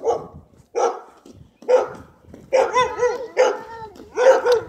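Dog barking loudly and repeatedly, some single barks and some quick runs of two or three.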